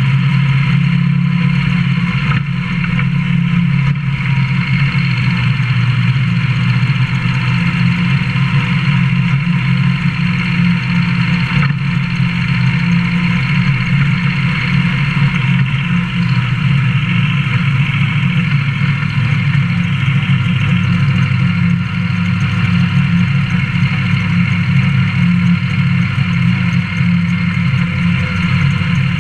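Modified pulling truck's engine running loud and steady with little change in pitch, heard from inside the cab.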